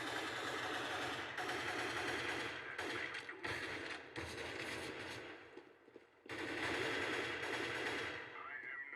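Rapid gunfire over dense noise, cutting out briefly about six seconds in.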